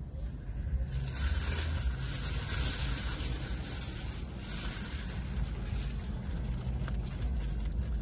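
Close-up eating sounds: crunching and rustling of fried chicken and paper, starting about a second in and strongest for the next few seconds, over a steady low rumble.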